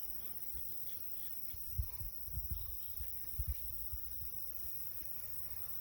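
Steady, high-pitched chirring of insects, with a few short low thumps around two and three and a half seconds in.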